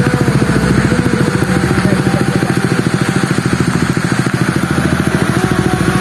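Motorcycle engine running steadily close by, a fast even beat of firing pulses with no revving.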